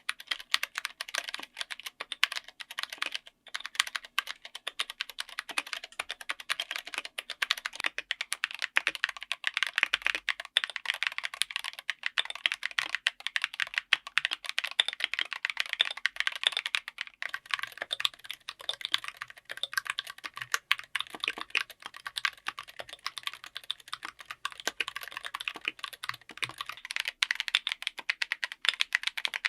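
Mechanical keyboard fitted with tactile switches being typed on continuously: a fast, uneven run of keystroke clicks.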